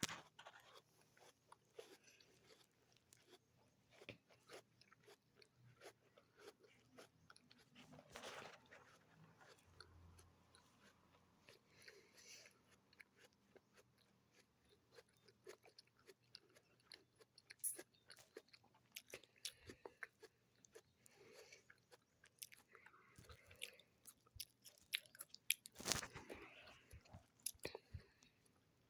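Someone chewing a raw apple, with many small crunching clicks of chewing and a louder crunch about eight seconds in and again near the end.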